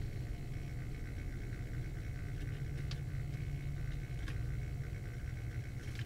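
Bagless vacuum cleaner running steadily, a low hum with a faint higher whine, as paper strips swirl in its clear canister. Two faint ticks, about three seconds in and again a second and a half later.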